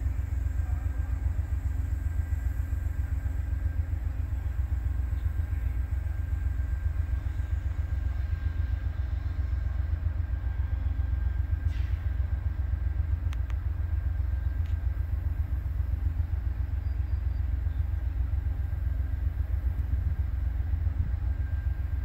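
Amtrak passenger coaches rolling past on the near track: a steady low rumble of steel wheels on rail, with a faint steady high whine above it.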